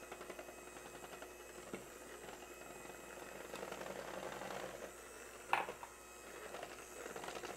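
Electric hand mixer running steadily on low speed, its beaters churning a thick condensed-milk filling, with a brief clink a little past halfway.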